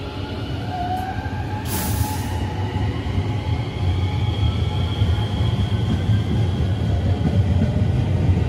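285 series sleeper electric train pulling out of the station: wheels rumbling and motors whining, rising in pitch and growing louder as it gathers speed. A short hiss comes about two seconds in.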